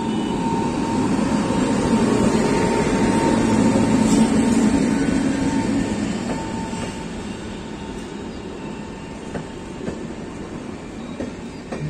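Indian Railways WAP-7 electric locomotive and its passenger coaches passing close by: a heavy rumble with a steady whine, loudest in the first half as the locomotive goes by, then easing into the rolling of the coaches with a few clacks of wheels over rail joints near the end.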